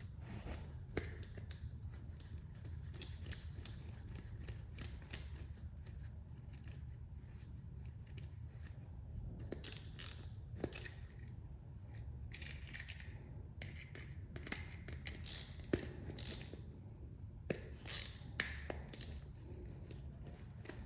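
Screwdriver tightening the terminal screws on an electrical outlet: scattered small clicks and short metal scrapes, over a steady low hum.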